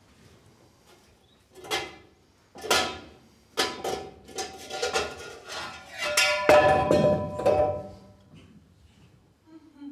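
Metal pot lid knocked and rattled: three separate hits with a ringing after each, then a loud run of clattering, clanging hits as the lid comes off and falls to the floor, the lid ringing before it dies away.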